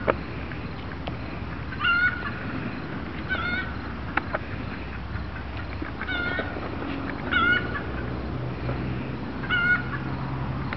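Five short, pitched animal calls a second or two apart, with a couple of sharp knocks between them.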